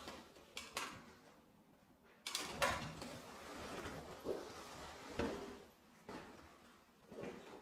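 A door being handled: a few sharp clicks and knocks, the loudest cluster about two and a half seconds in.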